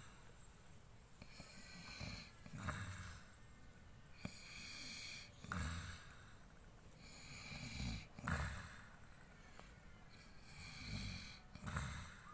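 A person snoring in a steady rhythm: a deep snore about every three seconds, five in all, with a faint hissing breath between them.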